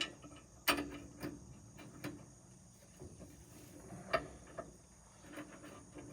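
A few sharp metallic clicks and knocks from hand tools working on hay mower blades, the loudest about a second in and again about four seconds in. Insects chirp steadily in the background.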